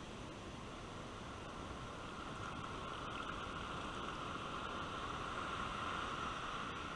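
Ocean surf washing up over the sand and draining back, a steady hiss of water that swells through the middle and eases near the end.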